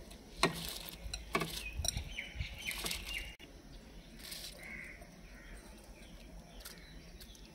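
Raw rice poured from a glass bowl into boiling jaggery water in an iron kadhai, the grains splashing in with a few sharp splashes and clinks over the first three seconds. Birds call faintly in the background.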